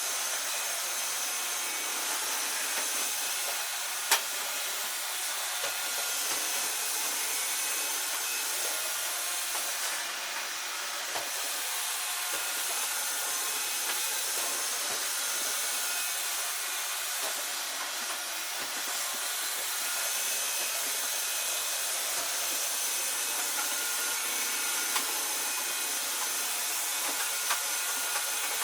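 iRobot Roomba robot vacuums running, a steady high whirring hiss, with one sharp click about four seconds in.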